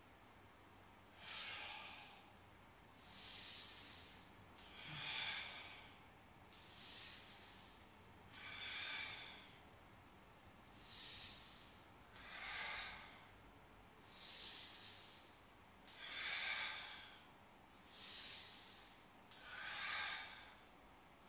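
A man breathing audibly in and out, about one breath every two seconds, paced to repeated squats with arm raises: slow exertion breathing, inhaling on the way down and exhaling on the way up.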